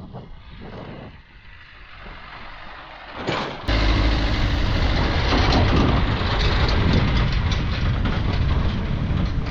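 An engine running, low and fairly quiet, then about four seconds in a sudden change to a much louder engine noise with steady crackling and rattling.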